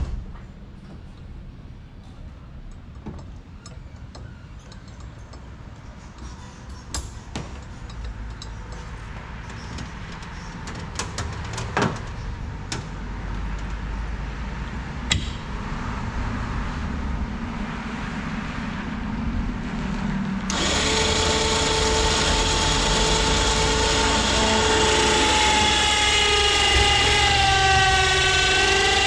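Power canoe loader's motor running, with clicks and knocks from the rack and strap as the canoe is pulled. About two-thirds of the way in, a much louder, steady whining motor tone starts abruptly, and its pitch wavers and sags slightly near the end.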